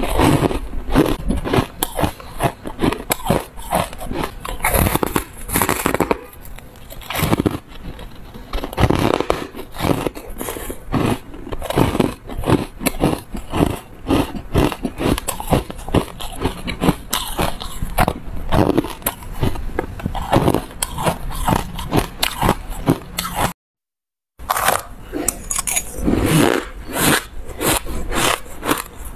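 Close-up crunching and chewing of frozen ice coated in dry buckwheat powder: dense, irregular crackling bites and chews. The sound drops out to silence for under a second about three-quarters of the way through, then the crunching resumes.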